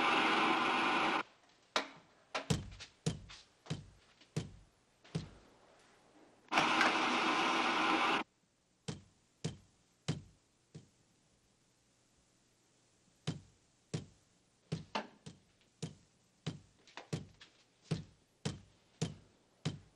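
Steam hissing in two strong bursts from a steam-room jet, each cutting off suddenly. Between and after them comes a series of sharp, irregular knocks and clicks in a tiled room.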